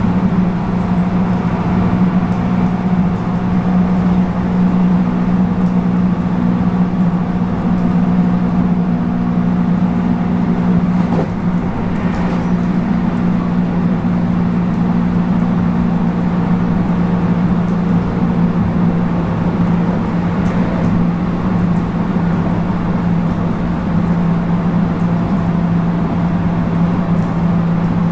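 JR West 221 series motor car running between stations, heard from inside the car: its MT64 traction motors and gears hum steadily over the rumble of wheels on rail, the low hum sinking slightly in pitch.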